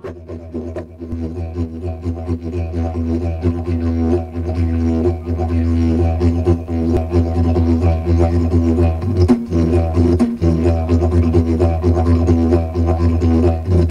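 Didgeridoo playing a low, continuous drone with a rhythmic pulsing in its overtones, stopping abruptly near the end.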